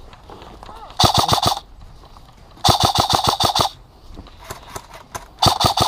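Airsoft gun firing three rapid bursts of shots, about eight to nine shots a second: a short burst about a second in, a longer one near the middle, and the longest near the end.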